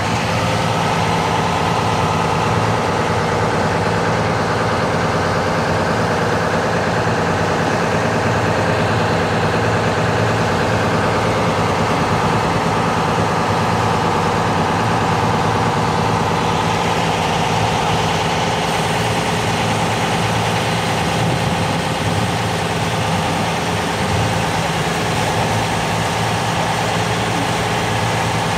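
Ferry boat's engine running steadily under way, a constant low hum over an even rush of noise from the churning water.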